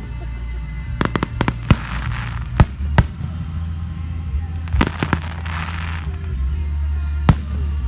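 Aerial fireworks shells bursting in a display: sharp bangs at irregular intervals, some in quick clusters of two or three, over a steady low rumble.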